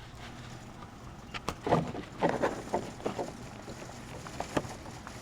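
Rain falling outside, faint as heard from indoors: a soft even hiss, with scattered light taps and knocks through it.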